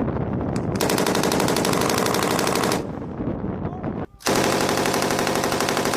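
Vehicle-mounted machine guns firing two long bursts of automatic fire, each about two seconds, separated by a short lull with echo.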